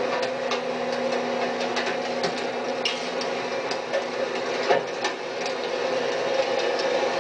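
FAUN Powerpress rear-loader's packer mechanism running with a steady hydraulic hum while the blade crushes wooden furniture in the hopper, with many sharp cracks and snaps of breaking wood.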